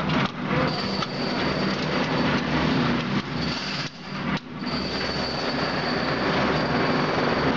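Electric spice grinding machine running, with a steady mechanical rumble and a thin high whine from its motor and chopping blade, and a few brief sudden dips, the clearest about four seconds in.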